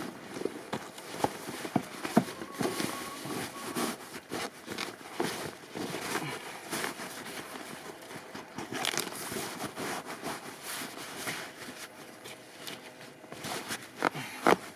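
Black landscape fabric rustling in irregular handling strokes as it is folded over and tucked down around a compost pile, with a couple of louder rustles near the end.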